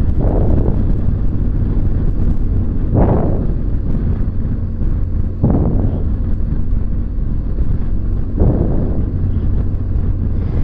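BMW R1200GS boxer-twin motorcycle running at a steady road speed, heard from the rider's camera behind the windscreen with wind noise over the engine hum. Four brief swells of noise come a few seconds apart.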